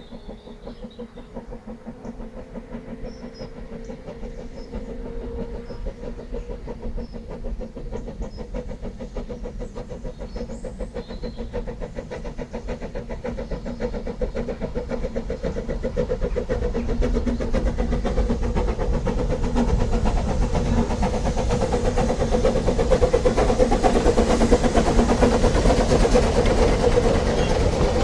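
Ffestiniog Railway Double Fairlie steam locomotive David Lloyd George approaching with its train: rapid exhaust chuffing that grows steadily louder as it draws near.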